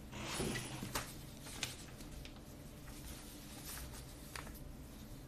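A sheet of paper slid off another sheet on a desk, a short rustle, followed by a few faint light taps.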